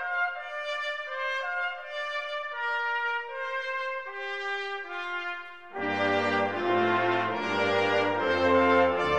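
Opening theme music: a slow melody of held notes on its own, joined about six seconds in by a fuller, louder ensemble with low bass notes.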